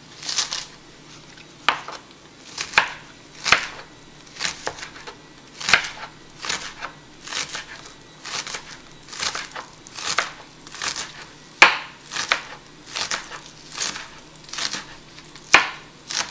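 Kitchen knife slicing through fresh spring onions on a bamboo cutting board: a steady run of crisp crunchy cuts, a little more than one a second, several ending in a sharper knock of the blade on the board.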